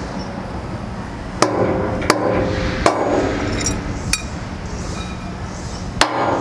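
An orange mallet striking the metal piston cup assembly of a Hog Pump grout pump, tapping the greased cup into its cylinder. There are about five sharp knocks at irregular intervals, each with a brief metallic ring.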